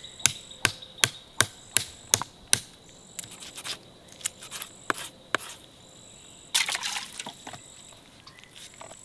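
Knife chopping an armadillo carcass into pieces on a wooden stump: a quick run of sharp knocks, about three a second, then a few slower strikes and a short rasping cut a little later. Insects trill on and off.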